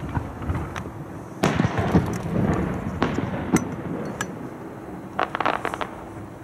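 Aerial fireworks shells bursting: a few sharp booms with a rumbling echo, then a quick run of crackling pops near the end as the sound fades.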